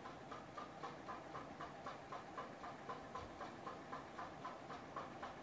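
Faint sizzle of ground spices and salt frying in mustard oil in a pressure cooker, with a faint, regular ticking about four times a second.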